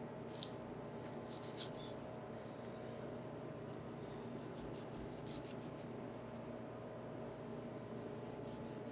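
Sharp knife slicing and scraping layers of fat and connective tissue off a beef chuck roast: faint, scattered soft strokes over a steady low hum.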